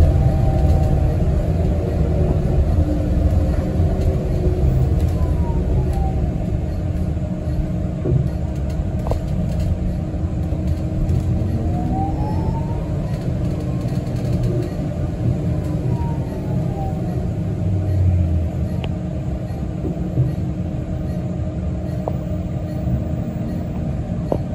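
Inside a moving city bus: the steady low rumble of the engine and road noise, with a faint whine that rises and then falls in pitch about midway through.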